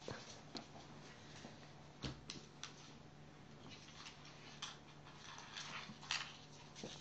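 Faint scattered scuffles and rustles as an English Springer Spaniel puppy tugs and chews at a plush toy on a wooden floor, over a steady low hum.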